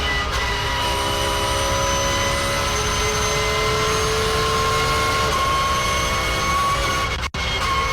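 Porsche race car running at speed, its straight-cut gearbox giving a high whine that drifts slowly in pitch over the engine and road rumble. The sound cuts out for an instant about seven seconds in.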